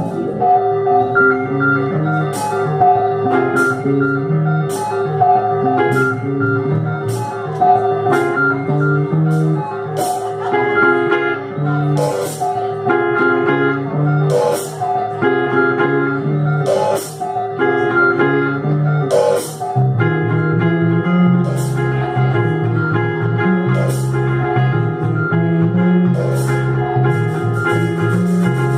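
Instrumental psychedelic rock jam: guitar and organ-like synthesizer over a low repeating line, with drums striking at a steady beat. About two-thirds of the way through, the low line gets busier.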